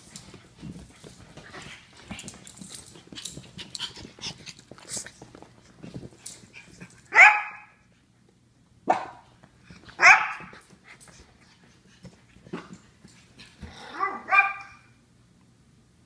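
Japanese Chins barking: about five sharp barks spaced over the second half, two of them in quick succession near the end. Before them, several seconds of light clicking and rustling as the dogs move about on a leather sofa.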